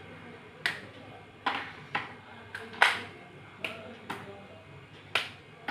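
Wet slate pencils being snapped into short pieces by hand: about eight sharp cracks at irregular intervals.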